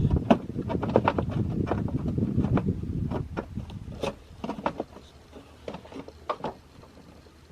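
Irregular knocking and clattering of a cold-air-intake airbox and its brackets being handled and worked into place in a truck's engine bay, busiest in the first three seconds, then scattered clicks.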